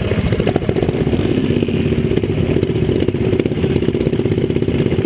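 Small mini-bike and pit-bike engines running at idle together, a fast, steady putter.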